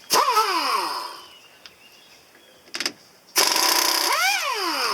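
Impact wrench run in two short bursts, a few seconds apart, loosening the bolts that hold the strut to the steering knuckle. Each burst's motor pitch falls away as the trigger is let go.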